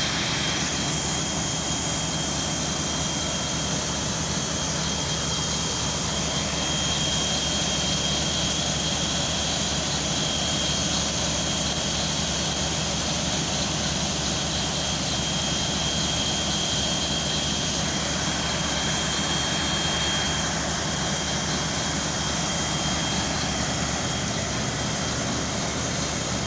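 Truck-mounted water-well drilling rig running steadily: its engine and air compressor rumble under a loud, even rush of compressed air blowing water and spray up out of the borehole around the drill string, with a steady high whine.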